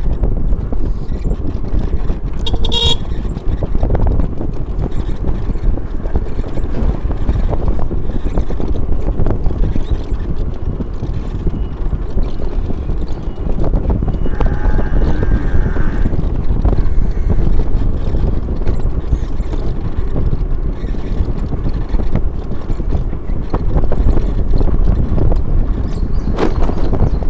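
Steady wind rumble and road noise of travel along a village road, with a short vehicle horn toot about three seconds in and a longer, higher horn about halfway through.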